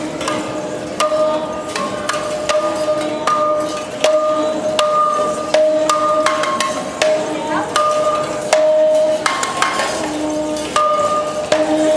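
Tin cans and bottles hanging on strings from sound costumes knocking and clanking together irregularly as the performers move, with a woman singing long held notes that step between a few pitches.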